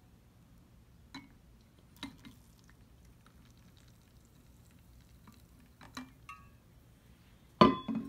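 Faint pour of water from a metal water bottle into a small plastic washer tub, with a few light clinks of the bottle against the tub. Near the end a louder clunk with a short ring as the metal bottle is set down, then a smaller knock.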